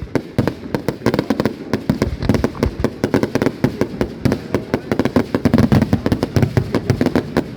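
Fireworks going off in rapid, irregular succession: dense crackling bangs, many a second.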